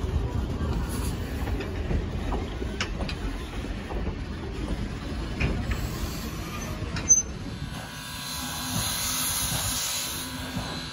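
Steam train passenger coaches rolling by with a low rumble and scattered clicks of wheels over the rails, and a sharp clank about seven seconds in. From about eight seconds the steam locomotive hisses steam.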